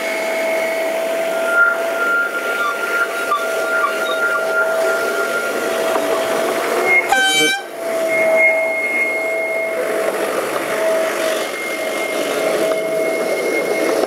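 Narrow-gauge tramline locomotive and coaches running along the track with a steady high whine, and a short horn blast about seven seconds in.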